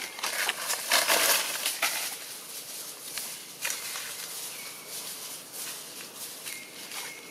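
Dry leaf litter rustling and crackling as macaques move about on it, loudest in the first couple of seconds, with scattered light clicks. A faint, thin, steady high note sounds twice in the second half.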